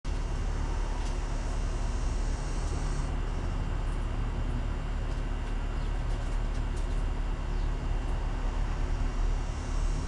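Steady outdoor background noise: a low rumble under a high hiss. The hiss drops away about three seconds in and returns near the end, and there are a few faint clicks.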